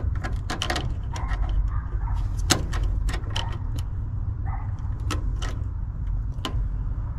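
Scattered sharp clicks and light taps as multimeter test probes and control wires are handled at an air-conditioner condenser's contactor, with one louder click about two and a half seconds in, over a steady deep rumble.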